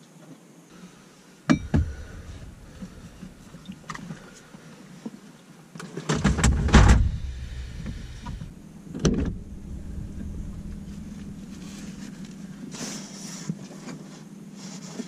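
Getting into a Jeep's cabin: sharp knocks and handling noises from doors and gear, with keys, and a loud scraping cluster about halfway through. A steady low hum sets in about two-thirds of the way in and carries on.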